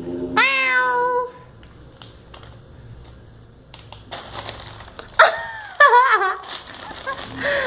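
Domestic cat meowing: one falling meow about half a second in, then a run of wavering meows in the second half. Between them, soft rustling of a plastic bag.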